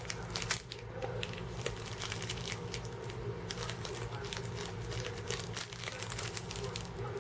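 Crinkling and crackling of a small shiny plastic Shopkins blind bag being squeezed and worked open by hand, many quick rustles throughout, over a low steady hum.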